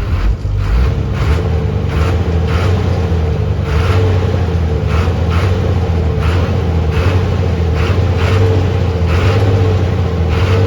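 A motor vehicle's engine running with a steady low drone, with short scraping noises coming about twice a second.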